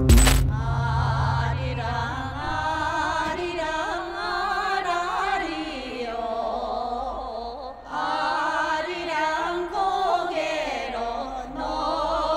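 A small group of women singing together without accompaniment, in the melismatic style of a Korean folk song, with a short break about eight seconds in.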